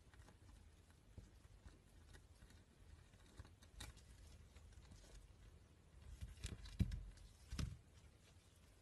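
Quiet room with faint scuffs and light clicks from a hairless guinea pig moving about on a tabletop, with a couple of soft thumps near the end.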